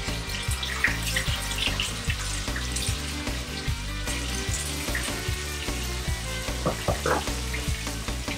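Beef pot roast searing in hot olive oil in a Dutch oven: a steady sizzle with scattered small pops, under background music.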